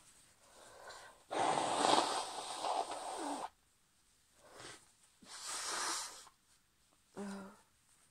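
A woman with hay fever breathing noisily through a stuffy nose between sneezes: one long, loud wheezy breath about a second in, then fainter short breaths and sniffs, with a brief voiced catch near the end.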